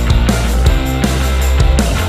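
Background music with a steady drum beat and sustained instrumental tones.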